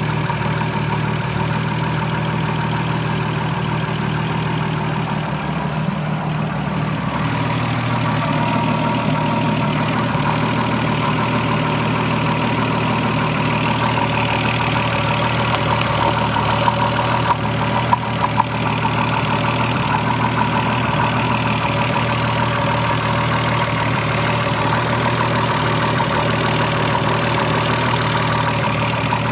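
Toyota Supra 7M-GTE turbocharged inline-six running steadily at idle, its tone shifting slightly about a quarter of the way in, with a few sharper ticks a little past the middle. The owner suspects rod knock.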